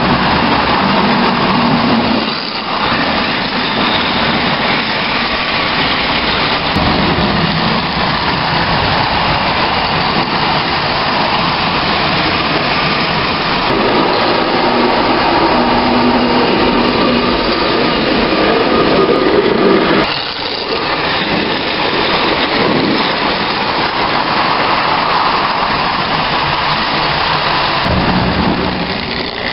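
Marx Commodore Vanderbilt tinplate toy passenger trains running on three-rail tubular track, a steady loud rattle and motor drone of wheels and cars on the metal rails. The sound dips briefly about two seconds in and again about twenty seconds in.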